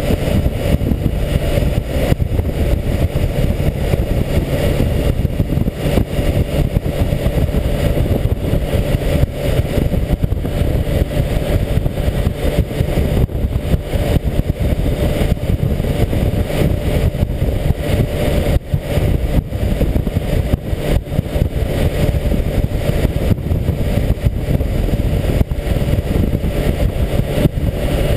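Wind buffeting a motorcycle tank-mounted GoPro's microphone as a loud, steady low rumble, with the BMW K1600GTL's inline-six engine running steadily under it while riding.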